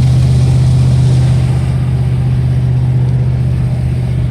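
Steady engine and road drone inside a vehicle's cabin at highway speed, a constant low hum.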